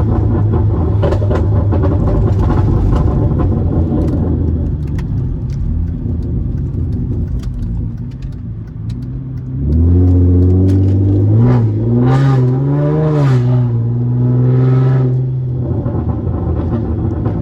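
Exhaust of a 2016 Hyundai Genesis Coupe's 3.8-litre V6, straight through test pipes, with a low rumble. About ten seconds in the engine revs up; its note rises, bobs up and down a few times and holds, then drops back to the rumble about sixteen seconds in.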